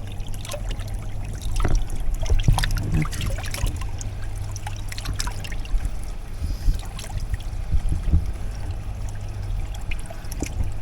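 Water trickling in an aquaponics grow bed while roots are pulled away from the siphon, with scattered short clicks and knocks of handling over a steady low hum.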